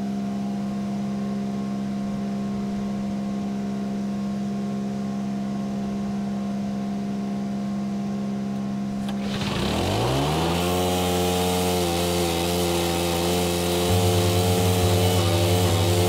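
Small gas-engine stump grinder idling steadily, then throttled up about nine seconds in, its engine note rising to a louder steady run. Near the end the cutter wheel bites into the stump and a rapid low pulsing joins the engine.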